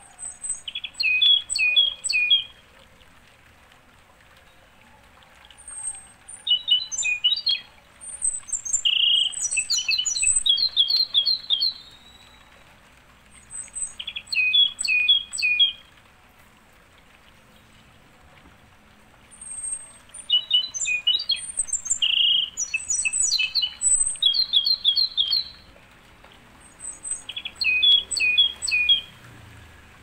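Songbird singing: repeated phrases of quick, high notes, each lasting a second or two, with short pauses between phrases.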